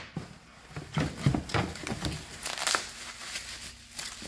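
Bubble wrap crinkling and rustling in short bursts as a wrapped toy is lifted from a cardboard box and handled, busiest between about one and three seconds in.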